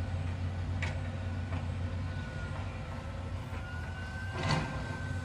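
Caterpillar hydraulic excavator's diesel engine running steadily while it digs, with a high whine that sinks and rises in pitch. Two sharp clanks come through, one about a second in and a louder one near the end.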